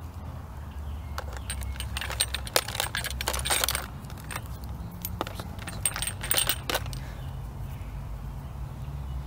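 Glass sample bottles and plastic reagent bottles clinking and rattling against each other in a plastic tub as a hand rummages through them, with a light glassy ring. The clatter comes in two spells and stops about seven seconds in.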